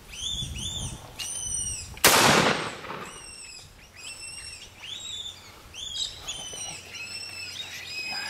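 Rabbit distress call used as a fox lure: repeated high-pitched wavering cries, roughly one to two a second. About two seconds in there is one loud sudden burst of noise that fades over about a second.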